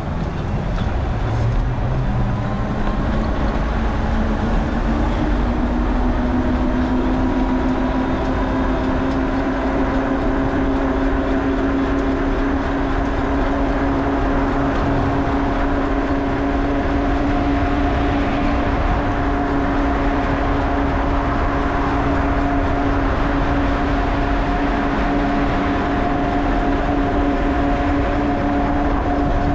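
Wind and road rumble on the microphone of a moving bicycle-mounted GoPro, steady throughout, with a mechanical whine that rises in pitch over the first few seconds and then holds steady.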